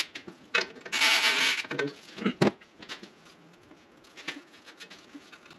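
Hand tools working on metal under a car: scattered clicks and knocks of a wrench against bolts and brackets, with a short scraping rustle about a second in, then only faint ticks.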